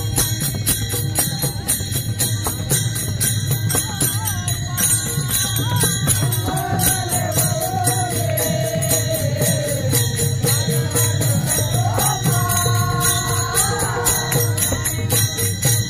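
Marathi devotional bhajan music of the Warkari kind: small metal hand cymbals (taal) clash in a fast, steady rhythm over a low drum. About six seconds in, a singer takes up a long, drawn-out line that sinks and then climbs again near the end.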